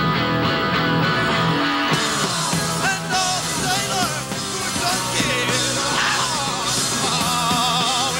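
Live punk rock band playing electric guitars over a full drum kit, loud and dense, with wavering high pitched lines from about three seconds in.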